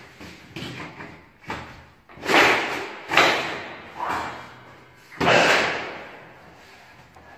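Hand-operated lever shear cutting sheet metal: a series of sharp cutting clanks about once a second as the blade is worked along the sheet, the loudest two about two and five seconds in, each fading over about a second.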